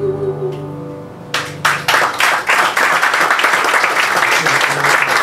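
The last held note of a ballad, sung with piano and double bass, dies away, and a little over a second in the audience breaks into applause that goes on steadily.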